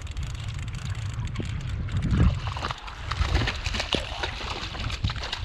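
Wind buffeting the microphone in a gusting low rumble, with water sloshing against a small inflatable boat and scattered light clicks and knocks.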